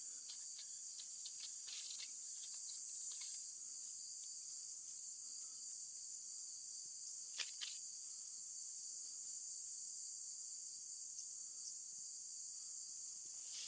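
Steady high-pitched insect chorus, crickets chirring without a break, with two short faint ticks about seven and a half seconds in.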